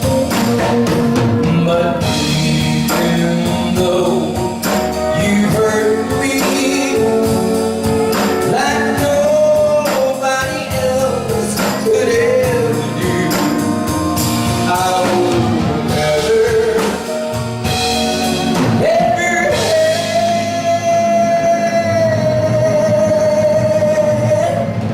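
A man singing a song with full band accompaniment, holding one long note for about the last five seconds.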